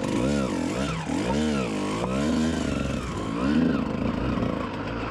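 Kawasaki KX125's single-cylinder two-stroke engine revving up and down several times, its pitch rising and falling with each blip of the throttle as the dirt bike is ridden over rough rock.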